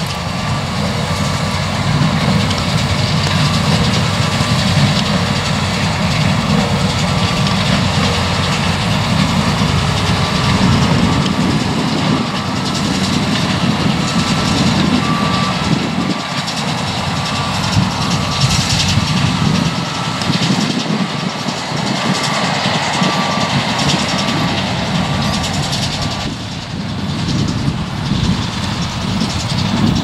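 New Holland T7.210 tractor running while a Massey Ferguson 186 small square baler works behind it: a steady mechanical din. A faint high beep repeats about once a second and stops near the end.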